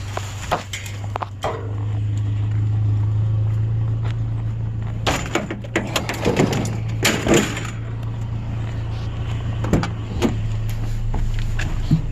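Steady low drone of a vehicle driving, heard from inside the cab, with a run of sharp knocks and rattles about halfway through and a couple more near the end.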